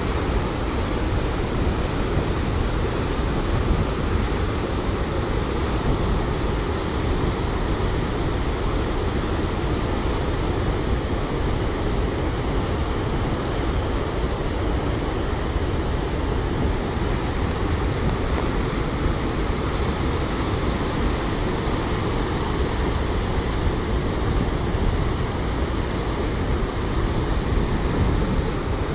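Water released through dam floodgates opened to twelve feet, rushing and churning in a steady, loud roar with no let-up.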